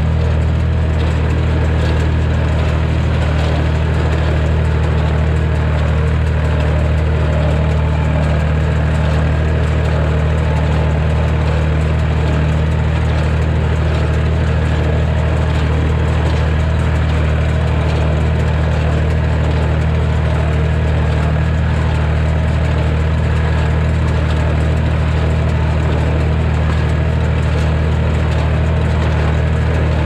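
Massey Ferguson 245 tractor engine running steadily under the driver's seat as the tractor drives along the hay windrows, a constant low engine note that does not change.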